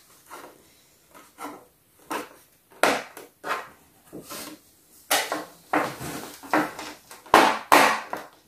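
Plastic window frames being pressed into the plastic walls of a toy dollhouse: an irregular string of small clicks, taps and scrapes of plastic on plastic, busier and louder in the second half.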